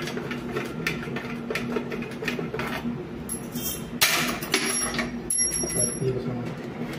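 Screwdriver clicking and scraping against the chrome-plated flush plate of a concealed toilet cistern, with a louder metal scrape about four seconds in followed by brief faint metallic ringing.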